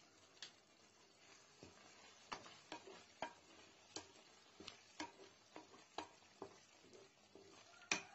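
Spatula stirring tomato chutney in a metal pot, knocking and scraping against the pot in irregular strokes over a faint steady hiss; the loudest knock comes near the end.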